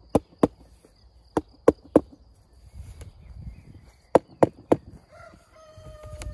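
Sharp mallet taps driving flexible Tetra Pak garden edging down into a slit in the soil, in three quick runs of two or three strikes about a third of a second apart. Near the end a rooster crows in the background, over a steady high insect trill.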